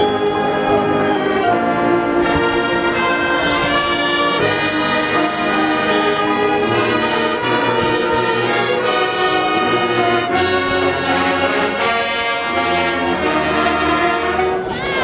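High school marching band playing, its brass section carrying sustained, changing chords over steady percussion.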